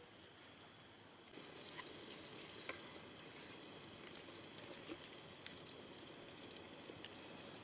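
Faint wood campfire crackling, with scattered sharp pops, and a soft hiss from a kettle steaming on the flames. The hiss grows louder about a second in.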